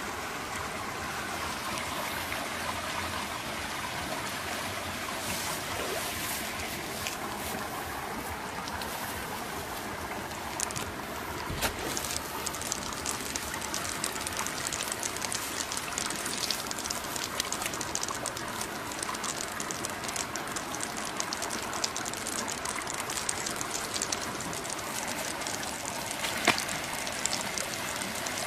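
Steady rushing of water in a small muddy stream, with a few sharp clicks: one about twelve seconds in and a louder one near the end.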